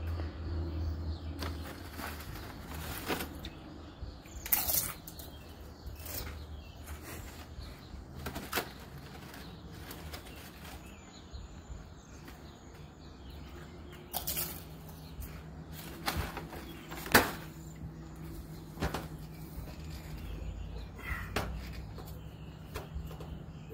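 Scattered short crinkles and crunches of a tortilla-chip bag being handled and chips being eaten, over a steady low outdoor hum.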